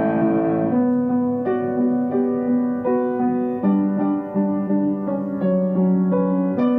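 Background music: a slow keyboard melody of held notes, each changing to the next a little more than once a second.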